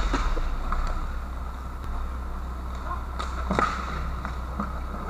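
Inline hockey play on a plastic tiled rink floor: a few sharp clacks of sticks, puck and skates over a steady low hum, the loudest about three and a half seconds in.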